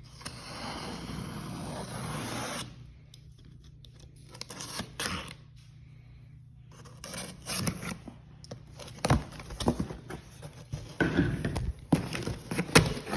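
Cardboard shipping box being opened: a long rip of packing tape lasting about two seconds, then scraping, rustling and knocks as the cardboard and packaging are handled, busier toward the end.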